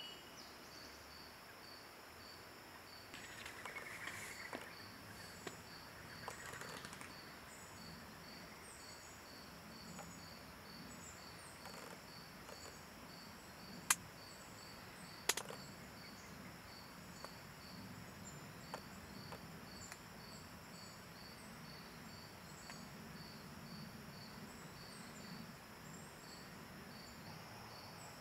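Insects chirping in a faint, steady outdoor chorus, an even rhythm of a few pulses a second with a higher, looser chirping above it. There are two sharp clicks about a second apart a little past halfway.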